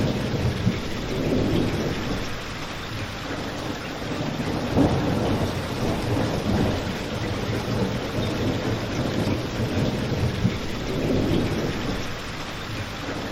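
Steady rain falling mixed with a crackling wood fire, with a few sharper pops about a second, five seconds and ten seconds in. Beneath it a low rumbling swells and fades.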